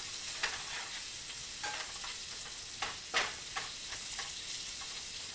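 Chopped prosciutto and onion sizzling in butter in a frying pan, with a steady frying hiss. A spatula stirs and scrapes across the pan several times, the loudest stroke about three seconds in.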